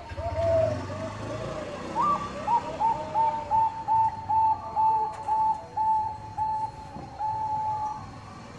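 Zebra dove (Thai-bred perkutut bangkok) cooing. A run of short, lower coos comes first, then about two seconds in a rising note opens a brisk, even series of about a dozen higher staccato coos that ends on a longer drawn-out note.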